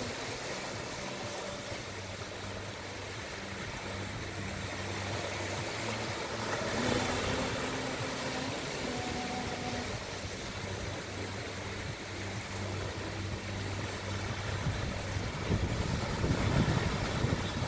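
Small ocean waves breaking and washing up on a sandy beach, with a steady low engine hum underneath that fades out near the end. A louder low rush of surf or wind on the microphone comes in near the end.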